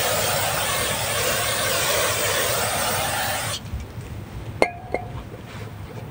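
Aerosol can spraying through a straw nozzle onto a newly fitted brake rotor: a steady hiss that cuts off sharply about three and a half seconds in. About a second later come two light metallic clinks.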